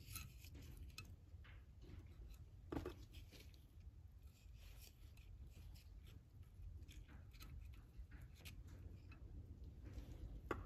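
Near silence with faint clicks and light ticks of small steel valve parts and a pick being handled at the pressure regulator bore of a 4L80e transmission pump, with one sharper click about three seconds in.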